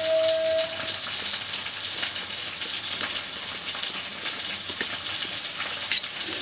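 Wire whisk stirring and scraping a thick spice-and-yogurt marinade against the sides of a bowl: a continuous rapid rustling scrape with fine irregular clicks.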